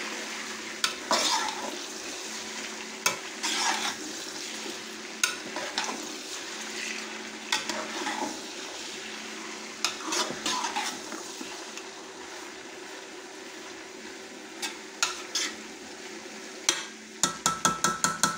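Raw chicken gizzards and liver sizzling in hot oil in an aluminium pot, stirred with a steel spoon that scrapes and clicks against the pot. A steady low hum runs underneath, and near the end comes a quick run of taps.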